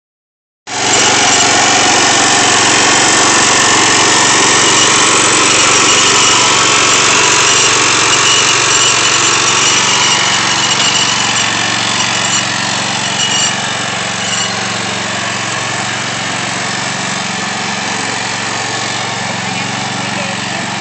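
Small tractor engine running steadily under load as it pulls a moldboard plow through garden soil; it grows somewhat quieter about two-thirds of the way through.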